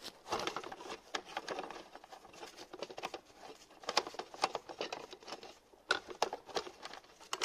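Quick, irregular patter of small clicks and rattles from an underbody cover panel and its screws being worked loose by hand.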